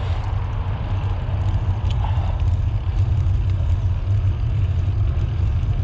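Steady low rumble of wind buffeting the microphone and tyre noise while cycling along a path.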